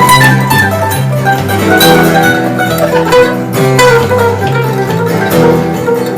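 Background acoustic string-band music: picked guitar and mandolin over a walking bass line.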